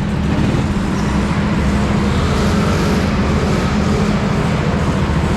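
Go-kart engine running steadily at a fairly even speed.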